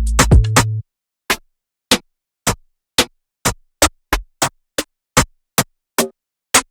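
A short electronic drum loop over a deep held bass note cuts off under a second in. Then single sampled snare hits from a dembow sample library play one after another, about two a second, each a short hit followed by silence.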